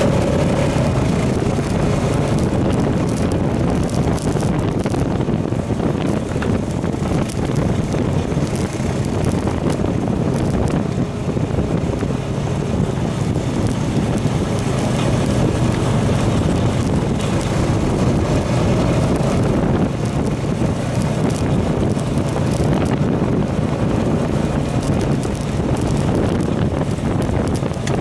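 2015 Honda FourTrax Foreman Rubicon 4x4 ATV running steadily under way on a gravel trail, heard from its own front rack, with wind buffeting the microphone.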